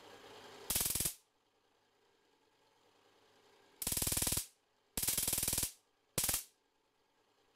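Four short bursts of rapid crackling buzz from high-voltage sparks, fired by a homemade coil through a geared rotary spark gap on 50 Hz AC. The first comes about a second in, then three more close together near the middle. Each lasts well under a second, as the gap drifts in and out of phase with the mains and only strikes now and then.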